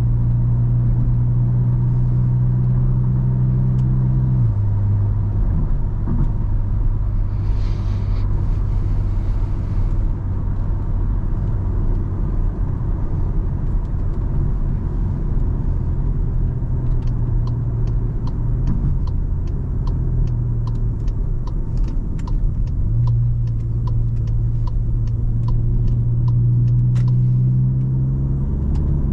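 Car engine and road noise while driving, with a steady low engine hum that drops in pitch a few seconds in and climbs back up about two-thirds of the way through. A regular ticking, about two a second, runs for about ten seconds in the second half.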